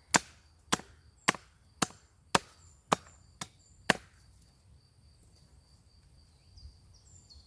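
Ontario Bushcraft machete chopping into a wooden branch: eight sharp strikes at about two a second, stopping about four seconds in.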